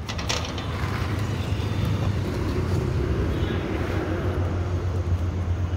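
A motor vehicle engine running, a steady low rumble that grows a little louder through the middle, with a brief rustle of the phone being handled at the start.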